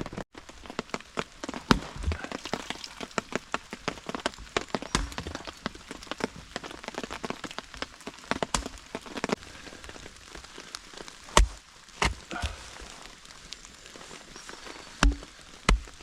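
Heavy rain pattering in dense, irregular drops, with several louder thuds scattered through it.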